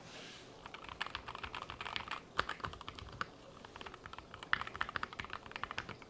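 Typing on a Keychron Q6 HE, a heavy aluminium keyboard with magnetic Hall effect switches: quick runs of key clacks, with a short pause a little past the middle.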